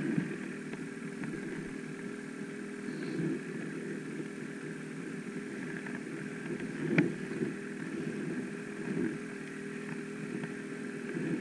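Ski-Doo snowmobile engines idling steadily while the sleds sit stopped in deep snow. A single sharp knock about seven seconds in.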